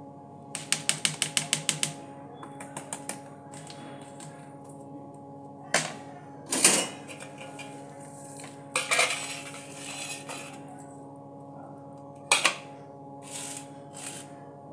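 A plastic colander is knocked against a stone countertop in a quick run of about ten taps, then come scattered knocks and clatter as green chillies are handled and the colander and a bowl are set down. A steady low hum runs underneath.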